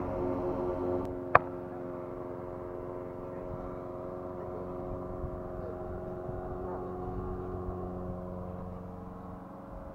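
Makita PLM5600N lawn mower's 190 cc four-stroke engine running at a steady speed, with a single sharp click about a second and a half in.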